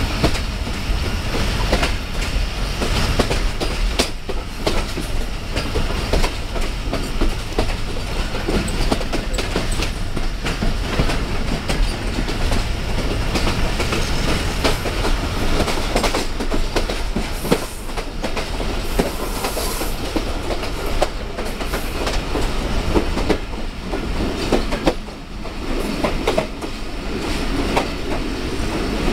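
Passenger train running along the line, heard from an open carriage window: a steady rumble and rattle of the coaches with the wheels knocking over rail joints again and again.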